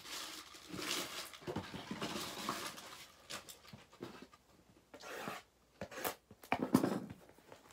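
Plastic shrink-wrap rustling and crinkling, with uneven scrapes and a few sharp strokes, as a wrapped cardboard box of trading cards is handled and opened; the loudest scrape comes near the end.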